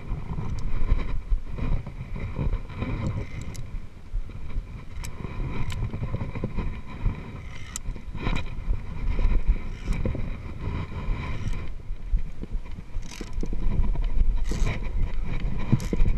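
Wind and handling noise rumbling on a body-worn action camera's microphone during a via ferrata climb. A few sharp clicks of carabiners and climbing gear on the steel cable cut through it.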